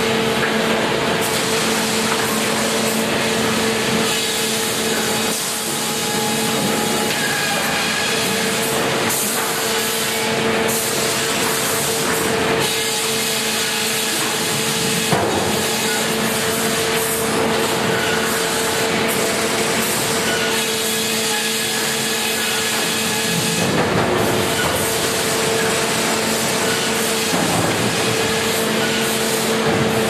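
A Grey Series 2000 flitching and resaw system running, with a steady machine hum under a constant din of saws and roller conveyors as timber is fed through. There is a single sharp knock about halfway through.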